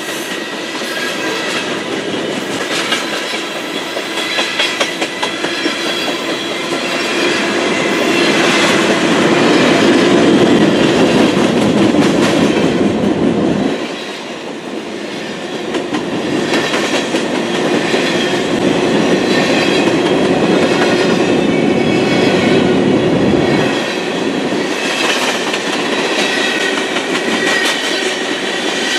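Freight cars of a manifest train rolling past (autoracks, covered hoppers and tank cars), their wheels clacking over the rail joints, with a thin high wheel squeal near the start and again near the end.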